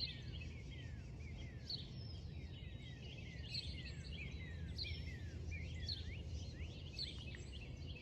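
Several songbirds singing together in a morning chorus: a steady stream of short, high chirps, most sliding downward, overlapping one another, over a steady low rumble.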